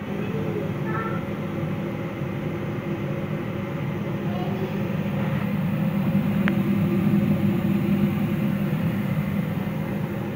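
Donut dough deep-frying in a pan of hot oil: a steady sizzle over a low, even rush, with a single sharp click about six and a half seconds in.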